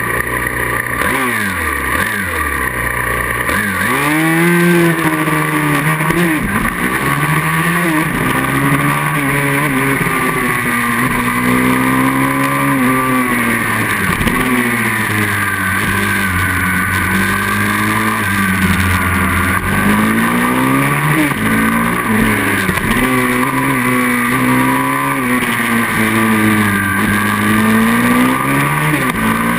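Single-cylinder pit bike engine heard from onboard, revving up hard as it pulls away from the start about four seconds in. After that the revs rise and fall over and over through gear changes, braking and corners.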